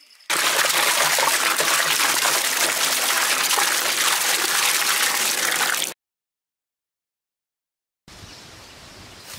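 A thick stream of water pouring into a large metal cooking pot and splashing on the water already in it. It cuts off abruptly about six seconds in, and after a two-second silence a much fainter steady noise follows.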